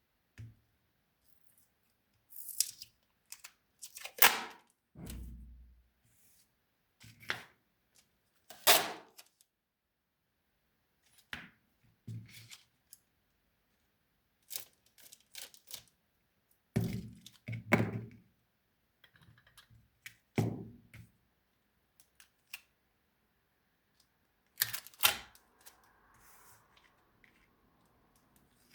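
Crafting handling noises: irregular sharp clicks, taps and knocks of materials and tools being handled and set down on a work surface, about a dozen spread out with short pauses between them.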